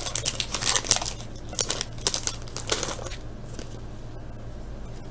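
Trading-card pack wrapper crinkling as it is torn open and the cards slid out, a run of crackly bursts that thin out and stop about three seconds in.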